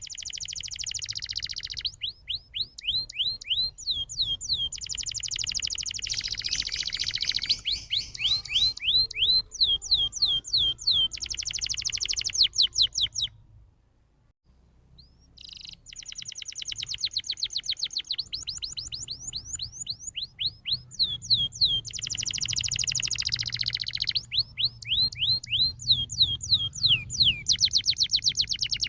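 Domestic canary singing a fast, continuous song: quick series of downward-sliding chirps, several a second, alternating with buzzy rolling trills. The song breaks off for about two seconds halfway through, then resumes.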